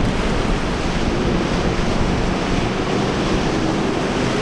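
MasterCraft wake boat's inboard engine running steadily at speed, under the rushing hiss of the spray and wake thrown off its hull.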